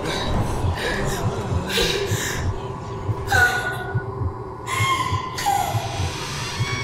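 A frightened young man's panting gasps and breaths, several in a row, some breaking into short whimpering cries.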